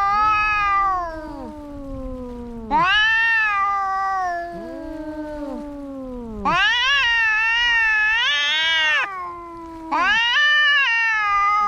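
Domestic cats yowling at each other in a fight. Long high yowls come about every three to four seconds, with quieter, lower wails sliding down in pitch between them.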